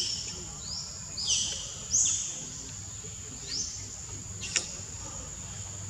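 Outdoor forest ambience: a steady high-pitched insect drone, with several short rising bird chirps over the first few seconds and a single sharp click about four and a half seconds in.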